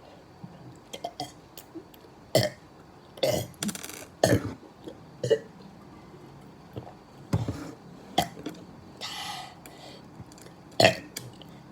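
A man burping over and over: a string of about eight short burps, spaced roughly a second apart.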